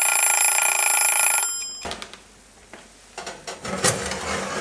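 Alarm clock ringing for about a second and a half and then stopping, signalling that the vegetables' oven time is up; quieter clatter follows.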